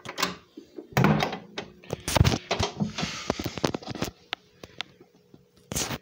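Metal cabinet door of an EST iO500 fire alarm control panel being swung shut, with clacks, rattling and clicks, loudest in the first half. A single loud clack comes near the end.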